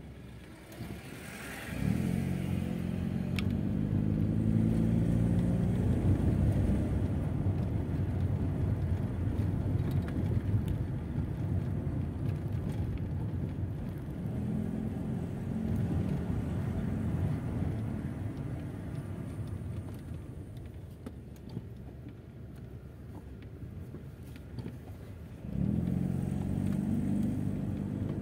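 Mercedes-Benz car's engine and tyre noise heard from inside the cabin while driving slowly. The engine comes under load suddenly about two seconds in, runs steadily and a little quieter through the middle, and pulls harder again suddenly near the end.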